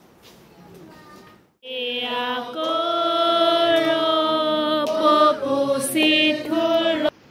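Voices singing a hymn in long held notes that step from pitch to pitch. The singing starts suddenly about a second and a half in and cuts off abruptly just before the end.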